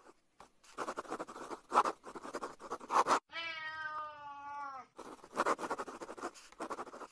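Scratchy scribbling strokes like a marker drawn quickly across paper. Partway through they give way to one long cat meow that sags in pitch at its end, and then the scribbling returns.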